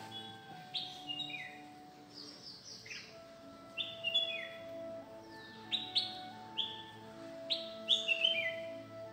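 Bird chirps, short falling notes in clusters of two to four every second or two, over soft background music with long held notes that change pitch in steps.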